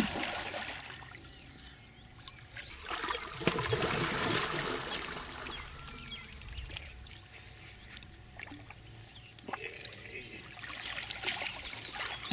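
Water splashing and trickling at the lake edge as a hooked carp is played in, with a louder, busier stretch of splashing about three seconds in.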